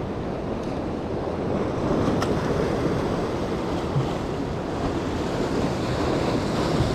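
Surf washing and breaking against jetty rocks, a steady rushing of waves, with wind buffeting the microphone.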